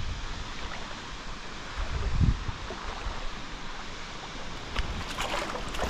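Steady rush of running water, with low wind thumps on the microphone at the start and about two seconds in, and a few short clicks near the end.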